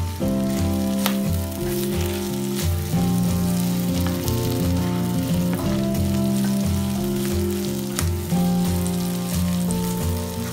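Clams sizzling as they fry in a pan while a wooden spatula stirs them, with a few sharp taps of the spatula against the pan. Background music with a slow, stepping bass line plays over it.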